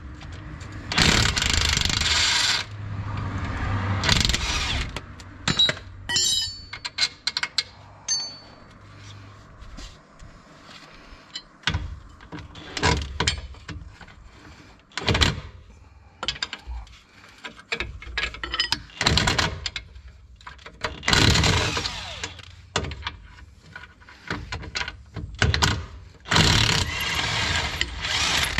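Hand tools working on a Ford Transit's front suspension, with metal clinks and knocks. Several noisy hissing bursts, each a second or two long, come near the start and twice near the end.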